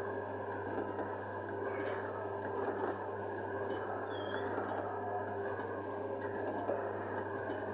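RG Mitchell Thomas the Tank Engine kiddie ride running: a steady mechanical hum and rattle from its motor and drive, with a few faint short squeaks.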